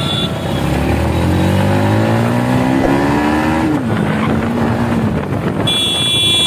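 Yamaha MT-15 V2's single-cylinder engine revving up as the motorcycle accelerates through the gears, its pitch rising for about three seconds, then dropping at a gear change and running steadier. Near the end a steady high ringing tone comes in over it.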